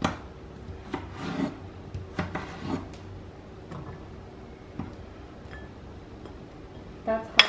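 Knife cutting vegetables on a cutting board: a few scattered knocks and short scraping strokes in the first three seconds, then quieter. A sharp click and a brief voice come near the end.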